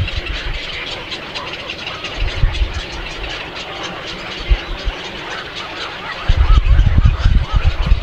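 Many birds chirping and chattering together in a dense, busy chorus. A loud low rumble joins in about six seconds in.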